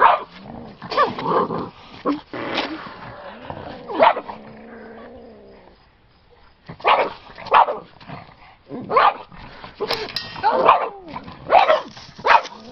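Boston terriers barking in short sharp bursts with growling between them, a dozen or so barks with a brief lull about halfway through.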